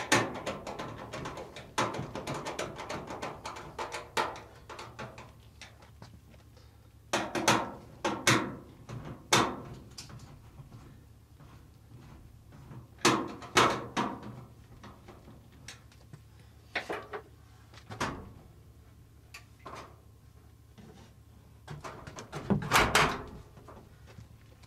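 Sheet-metal cabinet panels of a Maytag top-load washer being handled and fitted: irregular knocks, clunks and rattles as the front cover is clipped on and the top is lowered into place, loudest in clusters about seven seconds in, about thirteen seconds in and near the end. A steady low hum sits underneath.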